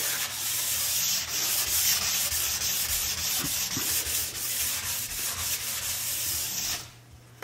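Hand file rasping along a ski's sidewall and edge in continuous quick back-and-forth strokes, shaving off sidewall material; the filing stops abruptly about seven seconds in.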